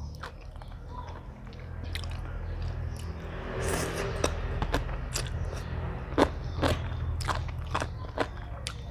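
A person biting and chewing crunchy food close to the microphone: a run of short, sharp crunches, the loudest about six seconds in.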